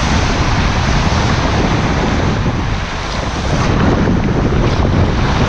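Water rushing and splashing under a tube raft sliding down an enclosed water-slide tube, loud and steady, with wind buffeting the action camera's microphone. Just before four seconds in the sound changes as the raft comes out of the tube into splashing water.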